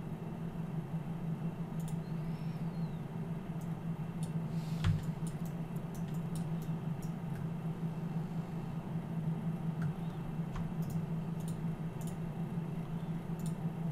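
A steady low hum runs throughout, with a few faint, sharp computer mouse clicks scattered through it and a single soft knock about five seconds in.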